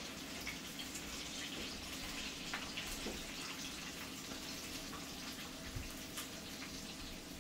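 Hot cooking oil sizzling steadily with small scattered crackles, from deep-frying chicken.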